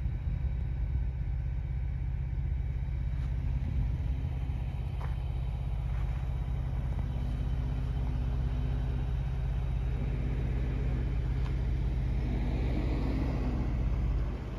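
Vehicle engine idling, a steady low drone. Over the last few seconds a pickup truck's engine and tyres on gravel grow louder as it approaches.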